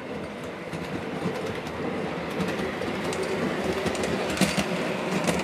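Model CTA 'L' train running on the layout's track, its rumble growing steadily louder as it comes closer, with irregular clicks of the wheels over the rail joints.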